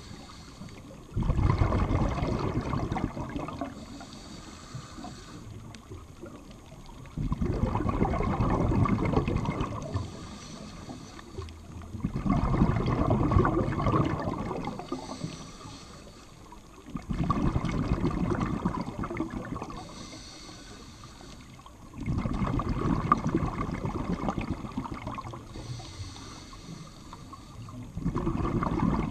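Scuba diver breathing through a regulator underwater: a short hiss on each inhale, then a loud burble of exhaled bubbles lasting a few seconds, in a steady cycle of about one breath every five seconds, six breaths in all.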